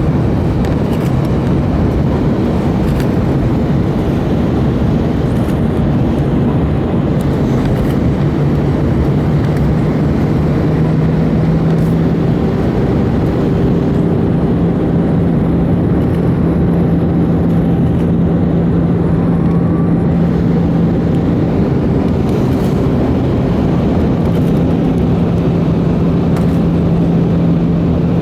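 Airbus A319 cabin noise in flight: the steady rush of air and drone of its CFM56 engines, with a low hum that steps up slightly in pitch about ten to twelve seconds in.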